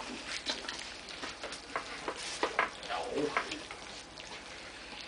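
A litter of puppies eating their first soft food from a bowl: wet, irregular smacking and lapping clicks from several mouths at once.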